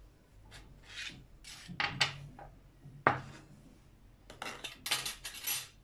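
Ceramic bowls and dishes handled on a tabletop: a few separate knocks and scrapes, the sharpest about three seconds in, then a run of scraping near the end.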